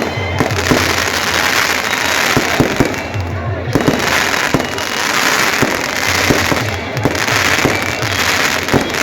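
Fireworks going off in quick succession: many sharp bangs and pops at irregular intervals over a continuous crackling hiss, with music in the background.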